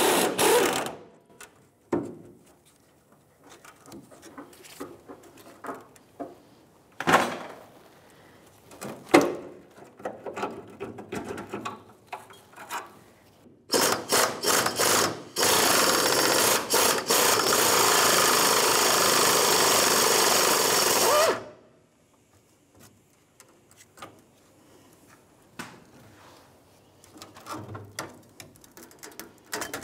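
Pneumatic impact wrench hammering on a rusted fuel-tank strap bolt to break it free. It starts in short spurts, then runs continuously for about six seconds before stopping abruptly. Before it, a few scattered metal clanks of tools on the rusty frame.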